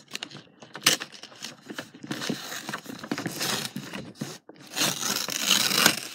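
A sheet of printer paper being torn by hand along a folded crease: two long rips, about two seconds in and again from about four and a half seconds in, the second louder, after some crackling paper handling.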